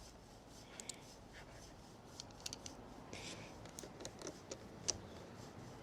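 Small clicks, taps and rustles of hands fitting battery terminal leads and screws, a few sharp ticks among faint handling noise.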